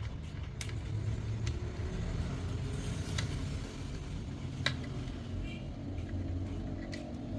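A low steady rumble with a handful of sharp clicks and taps, as of small parts being handled during a repair.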